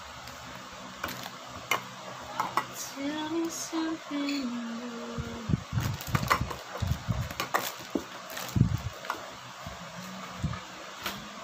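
Metal food cans knocking and clinking against each other and against a cardboard box as they are picked up and restacked by hand, in a run of irregular short knocks.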